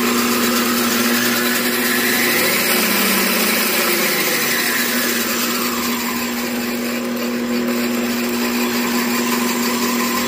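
Central Machinery 40981 12-inch three-wheel band saw running with no load, its motor, drive belt, wheels and blade giving a loud, steady hum. This is a test run just after reassembly, with freshly adjusted blade guide bearings and belt tension.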